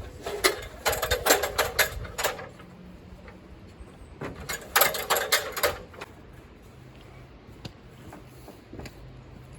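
Two bursts of rapid mechanical clicking and rattling, each a second or so long, with a few faint ticks between and after.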